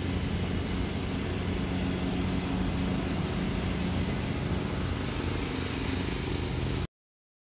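A steady low mechanical hum with constant droning tones, as of a motor or engine running without change; it cuts off suddenly near the end.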